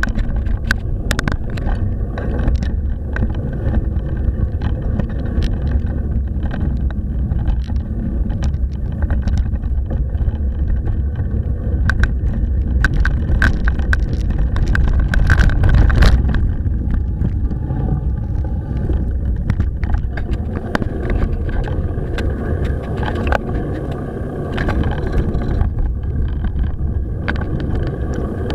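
Mountain bike riding over a rough dirt track, heard from a bike-mounted action camera: wind on the microphone and a steady low rumble from tyres and frame, with frequent sharp rattles and knocks as the bike jolts over bumps.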